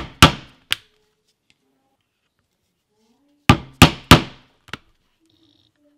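A mallet striking a multi-prong stitching iron, driving it through shell cordovan leather to punch stitching holes. There are two clusters of sharp knocks, each of several strong strikes and a lighter one. The first comes at the start and the second about three and a half seconds in.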